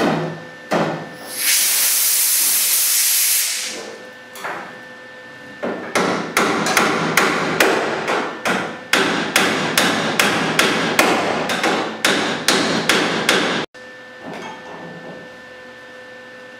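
A MIG plug weld sizzling for about two seconds on thin 20-gauge sheet steel. Then a hammer tapping on the clamped sheet-metal seam, about three sharp blows a second for roughly eight seconds, stopping abruptly.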